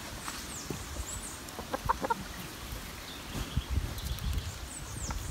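Free-ranging chickens clucking, with a few short clucks about two seconds in.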